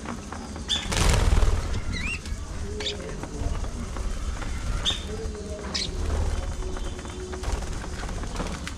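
Budgerigars chirping in short, scattered calls, with a loud burst of wing flapping about a second in.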